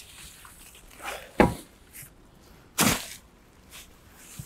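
A garden fork digging into and lifting compost: a few short scrapes and knocks, with two sharp knocks, the first about a second and a half in and the second just under three seconds in.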